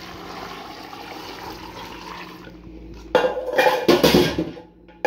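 Water poured from a metal jug into an aluminium pot of cubed pumpkin, splashing steadily for about two and a half seconds. Around three seconds in come louder knocks and clatter of metal cookware being handled.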